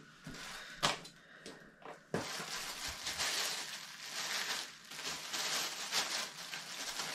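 A couple of light clicks, then from about two seconds in a clear plastic bag crinkling and rustling continuously as it is handled and pulled open.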